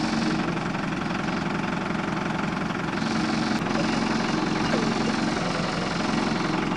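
Ford truck engine running steadily at low revs, close by.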